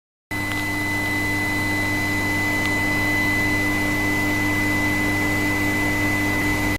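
Medium-frequency induction heating equipment running for forging: a steady electrical hum with a constant high-pitched whine, and a couple of faint ticks.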